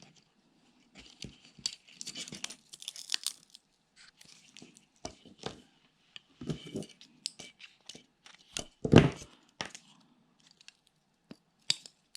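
The small plastic and metal parts of a cordless phone handset being handled and pried apart, as its display is levered up off the circuit board. Scattered clicks, scrapes and crackles, with one sharp knock about nine seconds in.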